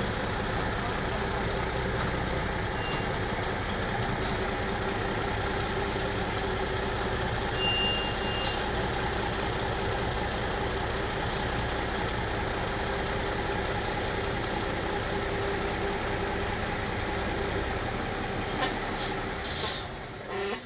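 A machine running steadily, with a faint steady hum. A few clicks sound just before it stops suddenly near the end.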